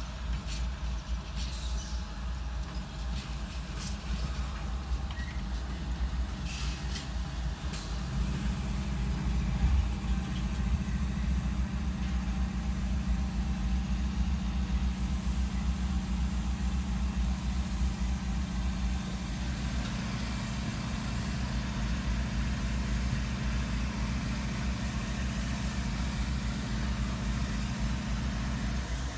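CSX GE diesel-electric locomotives pulling a coal train out of the yard, heard from inside a car: a steady low engine drone that strengthens about eight seconds in as the locomotives work harder, with a few light clicks in the first several seconds.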